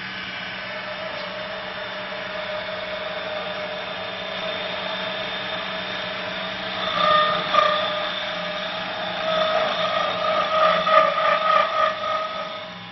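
Mini CNC wood lathe running, its spindle and drive giving a steady whine as the workpiece turns. The cutter bites into the wood for louder, rougher scraping about seven seconds in and again from about nine to twelve seconds, and the sound drops away just before the end.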